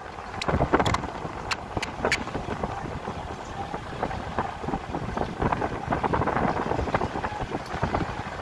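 Wind buffeting the microphone, an uneven rushing noise with a few sharp clicks between about half a second and two seconds in.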